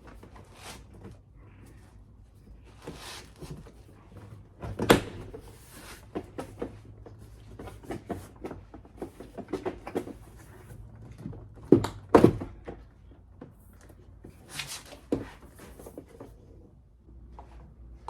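Knocks and clicks of plastic trim being popped loose and handled on a car door panel, the loudest about five seconds in and two close together about twelve seconds in.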